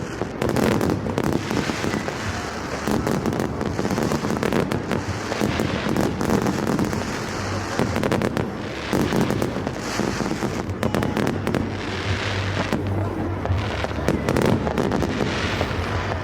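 Fireworks going off in a dense barrage of many overlapping bangs and crackles, without a pause.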